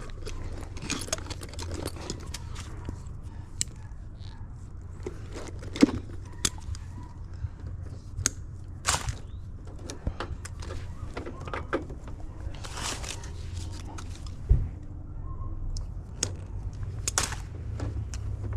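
Scattered clicks, taps and scrapes of meter test leads and hand tools against the metal electrical panel of an air-conditioning condenser, over a steady low hum.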